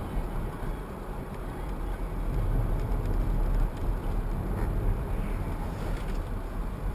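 Steady low rumble of road and engine noise from a moving car, picked up by a dashboard camera inside the cabin.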